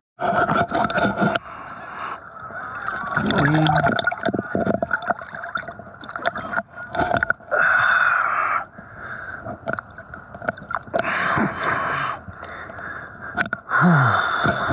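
Water splashing and sloshing close to the microphone in uneven bursts as a person swims in a lake, with breaths between strokes.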